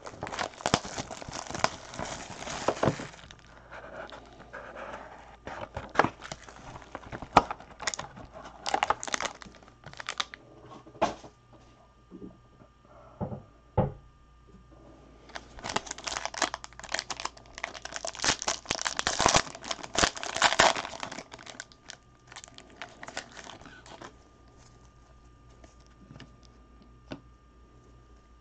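Plastic wrap and a foil card-pack wrapper being torn open and crumpled by hand, in three bursts of crinkling, the last ending about seven seconds before the end.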